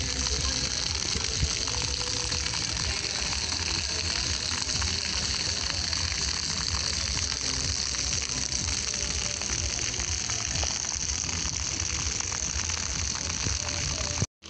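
Floor-fountain jets splashing onto stone paving: a steady hiss of spray with dense fine patter, as picked up by a CAT S42 smartphone's microphone. The sound drops out briefly near the end.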